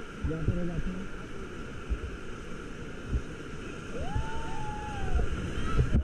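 Rushing river water around a whitewater raft, with wind buffeting the microphone. A voice calls out briefly near the start, and a high arching shout comes about four seconds in.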